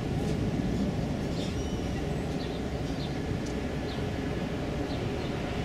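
Tugboat diesel engine running with a steady low rumble as the boat passes under way. Short high bird chirps come every second or so over it.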